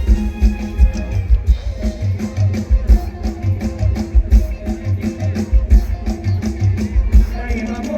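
Mor lam band playing an instrumental passage: a steady, driving drum-kit beat with bass, under a plucked, guitar-like melody.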